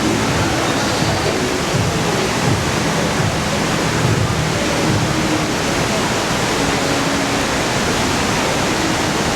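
Constant rush of water pouring down a man-made waterfall, loud and steady.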